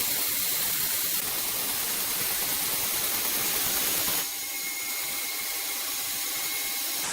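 Woodworking machinery running with a steady hiss and a faint whine. About four seconds in the sound drops a little and loses its lower part, leaving mostly the high hiss.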